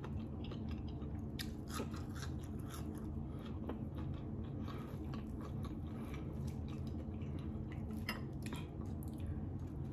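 A person chewing barbecue fried chicken close to the microphone, with scattered short smacks and clicks of the mouth, over a steady low hum.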